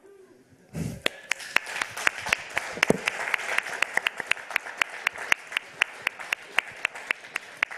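Audience applauding, with one pair of hands clapping close to the microphone in a steady beat of about four claps a second above the rest. The applause starts about a second in, just after a brief low thump.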